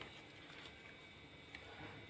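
Near silence: room tone, with one faint tap about one and a half seconds in.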